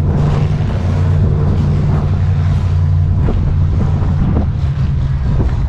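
Engine running steadily at idle, a loud, even low rumble, with wind buffeting the microphone.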